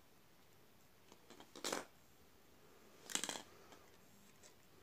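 Two short rustling handling noises, a little under two seconds in and again about a second and a half later, as a float switch and its wires are moved about.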